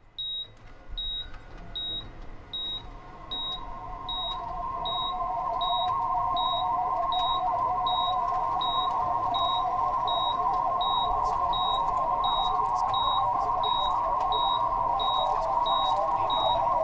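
Short, high electronic beeps repeating evenly about every three-quarters of a second, over a hissing drone that swells louder through the first several seconds and then holds steady.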